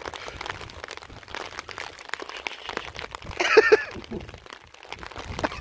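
Rain pattering close to the microphone: dense, irregular light taps and crackles, with one short louder sound about three and a half seconds in.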